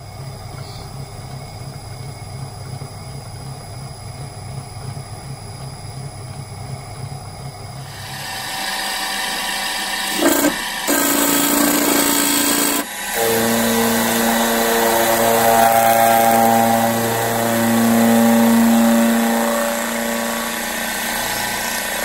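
Metal lathe turning a brass disc, running steadily with a regular low pulse. About eight seconds in it gives way to a louder milling machine drilling and opening out a hole through the brass disc, with a steady whine that shifts pitch a few times.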